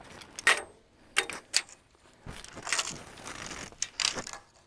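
Metal being handled: a few sharp clicks, then a longer stretch of scraping and rattling.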